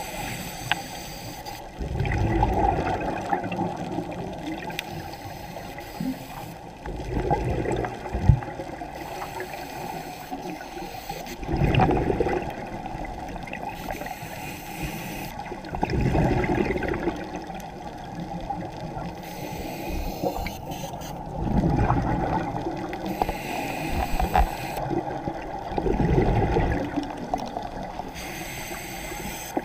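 Scuba regulator breathing heard underwater: a muffled rush of exhaled bubbles about every 4 to 5 seconds, six times, with a quieter bubbling hiss in between.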